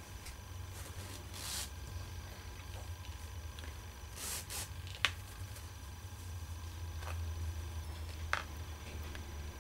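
Fabric rustling and bunching as a safety pin is pushed through a drawstring bag's casing to thread an organza ribbon. There are a few short swishes and two sharp clicks, about five and eight seconds in, over a low steady hum.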